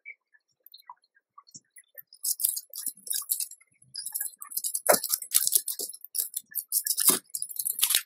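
Rustling and crinkling of newspaper and plastic nesting material as a mother mouse shifts about in her nest. It starts as faint scattered ticks and turns into busy crackling from about two seconds in, with a few sharper clicks near the end.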